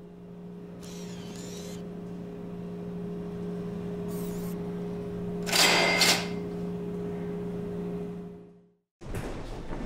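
Steady machine hum with brief whirring, rustling bursts, the loudest a double burst just past halfway, as a dollar bill is drawn into a bill-acceptor slot; the hum fades out near the end. After a short gap, clattery room noise begins.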